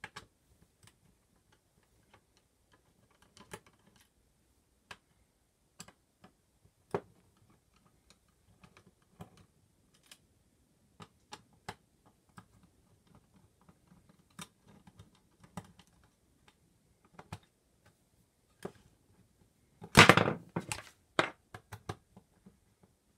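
Scattered light clicks and taps of a QuickDisk drive's metal chassis and small parts being handled, with a louder clatter of several knocks about twenty seconds in.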